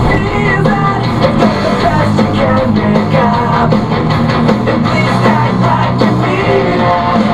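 Rock music with electric guitar and a steady beat, playing loudly.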